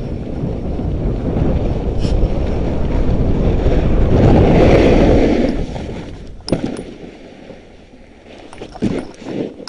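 Wind rushing over the camera microphone and a monoski hissing over packed snow during a run down the slope. The rush builds to its loudest about four to five seconds in, then falls away, and a few short scrapes come near the end.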